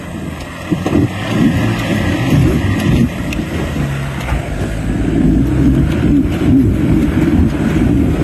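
Mitsubishi Pajero's engine revving under heavy load as the 4x4 clambers out of a deep dirt rut, growing louder over the first second or two.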